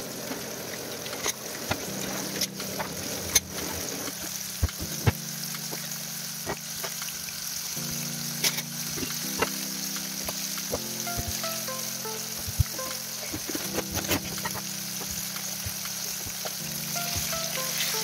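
Pieces of flour-dusted fish frying in oil in a pan: a steady sizzle with scattered pops and crackles.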